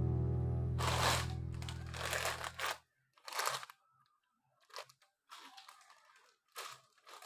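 Background music fading out, ending about three seconds in. Over and after it, plastic packaging such as sachet strips is handled, crinkling and rustling in several short bursts.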